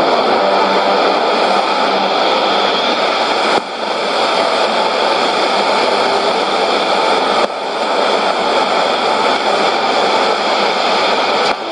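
Shortwave broadcast on 9676.9 kHz received in AM mode on a Sony portable receiver. Its FM modulation comes out as a loud, steady rushing hiss of static-like noise. The noise dips briefly three times, about four seconds apart.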